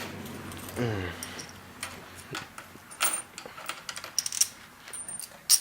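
Scattered metallic clicks and clinks of hardware and tools being handled, with a sharp click near the end. A short vocal sound comes about a second in.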